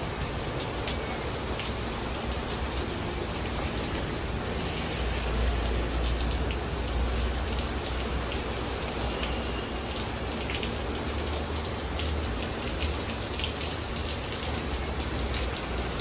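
Steady background hiss with many faint scattered ticks, and a low rumble that swells about five seconds in.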